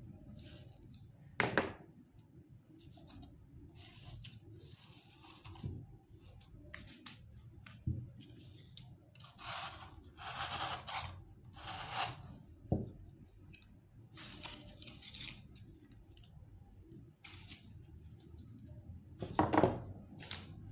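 Knife cutting and scraping through green floral foam in a series of short, noisy strokes, with a few sharp knocks of things handled on the table near the start and near the end.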